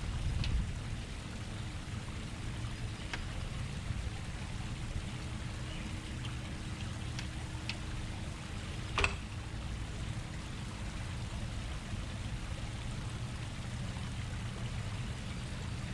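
Steady low outdoor background rumble, with a few faint clicks and one sharper click about nine seconds in as the plastic speaker cabinet is handled and seated onto its wall-mounted bracket.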